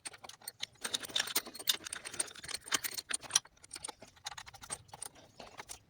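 Many small, irregular metallic clicks and taps, thicker in the first half, from hands and tools handling metal fittings while high-pressure fuel pipes are fitted to a common-rail diesel's high-pressure pump.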